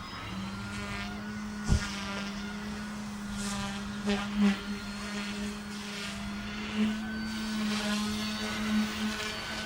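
Omphobby M1 small electric RC helicopter in flight, its rotors and motor giving a steady hum that swells briefly a few times. A single sharp knock about two seconds in.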